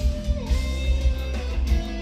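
Live instrumental progressive metal in the djent style: eight-string electric guitars playing busy melodic lines over bass and drums, with a heavy kick drum pulsing underneath.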